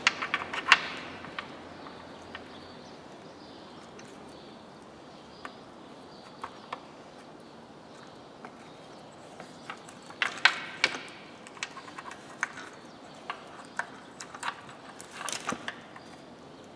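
Small clicks and knocks of hard plastic and rubber parts as gloved hands work at the port seals of a plastic intake manifold and set small parts down on the bench. They come in short clusters near the start, about ten seconds in and near the end, with single ticks between.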